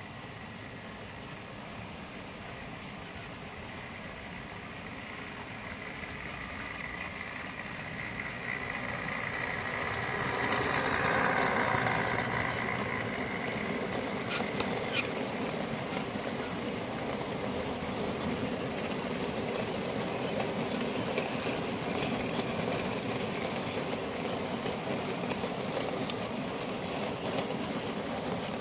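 Model railway diesel locomotive running towards and past close by, its motor hum growing to its loudest about 11 seconds in. Then a long rake of model mineral wagons rolls by with a steady rumble and a few sharp clicks of wheels over the points.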